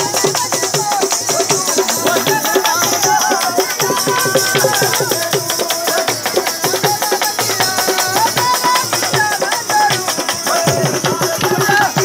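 Live Dogri folk music from a singer's band: a wavering melody over fast drumming and steady jingling, rattling percussion.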